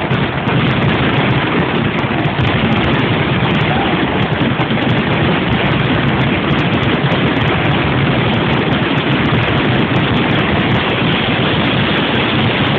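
Large fireworks display going off without a break, its bangs and crackle merging into a dense, steady roar with no single bang standing out.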